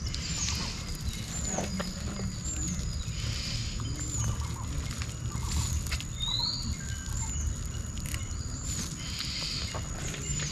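A small bird repeating a short, high, thin call every second or so, with one brief rising whistle about six seconds in, over faint rustling.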